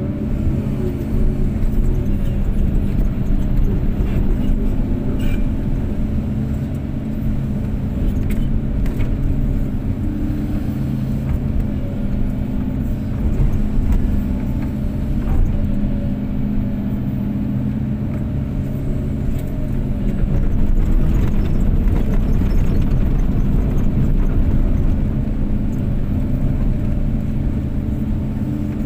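Kobelco SK250-8 excavator's diesel engine running steadily under working load. Its hum steps up and down in pitch now and then, and there are a few faint knocks.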